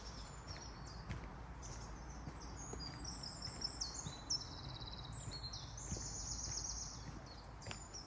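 Footsteps on a sandy forest path, with small songbirds singing quick, high trilled phrases that come thickest in the middle of the stretch.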